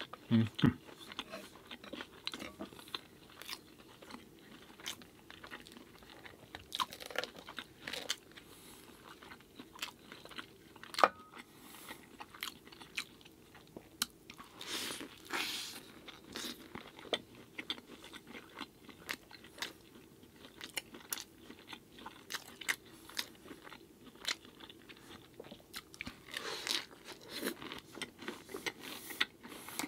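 Close-miked eating: biting and chewing with many short wet mouth clicks and smacks. There is a sharp click about eleven seconds in.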